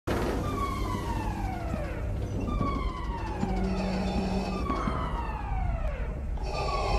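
Alarm siren sounding through a spaceship corridor in a film soundtrack: a falling wail that repeats about every two and a half seconds, three times, with a fourth starting near the end, over a steady low rumble.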